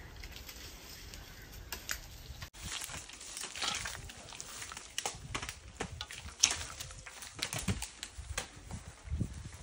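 Dry tamarind pods and fallen leaves rustling and crackling as they are gathered up by hand off the ground. About two and a half seconds in, a dense run of irregular crunches and clicks starts, with one sharper crack near the middle.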